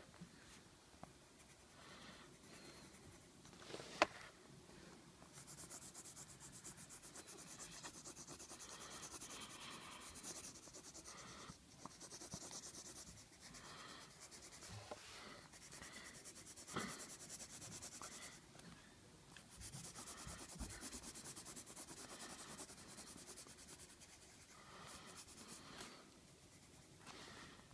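Colored pencil scratching on paper in stretches of quick back-and-forth shading strokes, with short pauses between them. A single sharp tap about four seconds in.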